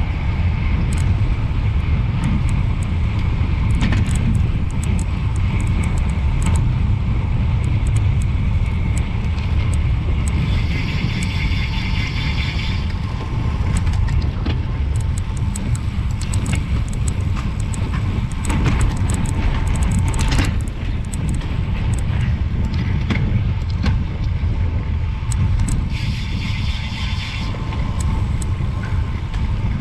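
Wind buffeting a road bike's handlebar-mounted action camera at race speed: a loud, steady low rumble with tyre noise. Twice, about ten seconds in and again near the end, the rear freehub buzzes for a couple of seconds while the rider coasts.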